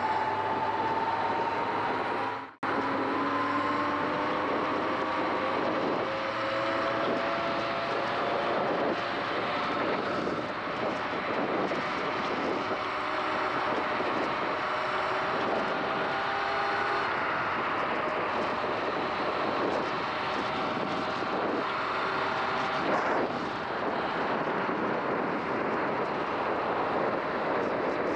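Sur-Ron X electric dirt bike riding on a wet road: the electric motor's whine climbs slowly in pitch as the bike gathers speed, then falls away twice in the second half as the throttle eases, over a steady wash of wind and wet-tyre noise. The sound drops out for a split second about two and a half seconds in.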